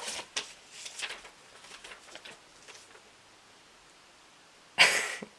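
Small clicks and light rustling of a ceramic mug and its packaging being handled, then quiet, then one short, sharp, loud breath noise near the end.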